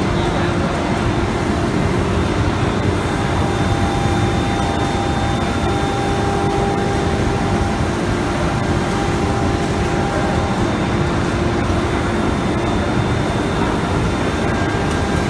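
Automatic-tool-change CNC router spindle milling grooves into a door panel, running steadily with a constant whine over the machine's dust-extraction noise.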